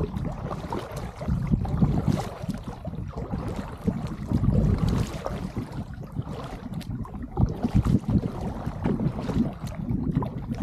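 Kayak paddle strokes dipping and splashing in the water, with wind buffeting the microphone.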